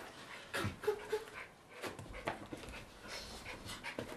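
Schipperke dog panting during a bout of high jumping, with scattered short knocks from the jumps and landings.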